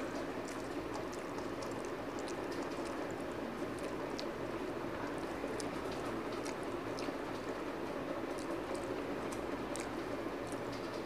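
Close-miked eating: chewing with many small wet mouth clicks and the squelch of fingers mixing rice with fried greens on a steel plate, over a steady low background rush.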